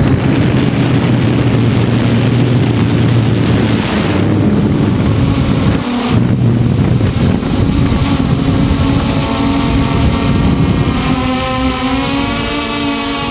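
Hexacopter's electric motors and propellers buzzing steadily, picked up close by the onboard camera, with wind noise on the microphone. Near the end, higher whining tones waver as the motor speeds shift.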